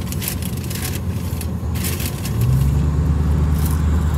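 Clear plastic food containers crackling and scraping as they are handled, over the steady low hum of a car's engine inside the cabin. About two and a half seconds in, the engine note rises and gets louder.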